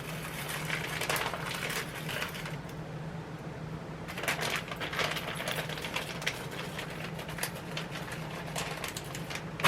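Rapid, irregular crinkling and small clicks of shredded mozzarella cheese being handled and put onto a bowl of chili, pausing briefly about two and a half seconds in. A steady low hum runs underneath.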